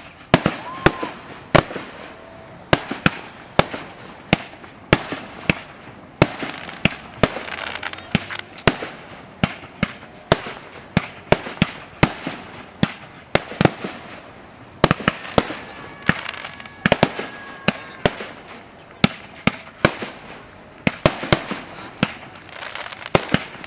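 Aerial fireworks shells bursting over a lake in a steady barrage of sharp bangs, about one or two a second.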